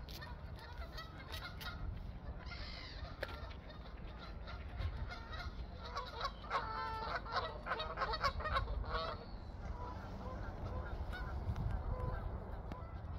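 Geese honking on and off, with a rapid run of repeated honks about six to nine seconds in.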